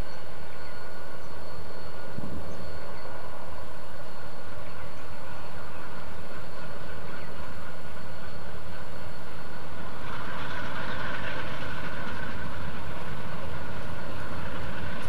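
Conrail GE C30-7A diesel-electric locomotives running as they roll slowly past, a steady engine rumble with a brighter hissing sound swelling in about two-thirds of the way through and again near the end.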